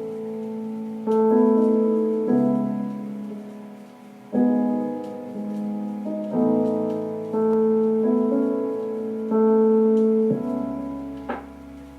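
Background music: a piano playing slow chords, each struck and left to fade before the next.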